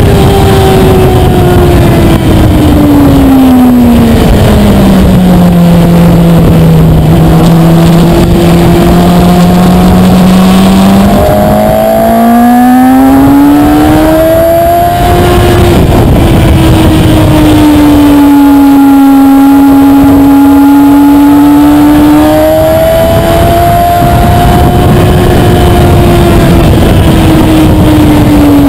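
Onboard sound of a Kawasaki ZX-6R 636's inline-four engine at speed on track, over a steady rush of wind noise. A few seconds in, the engine note falls as the bike slows and holds low for several seconds. About halfway through it rises again under acceleration, holds at a mid pitch, and falls once more near the end.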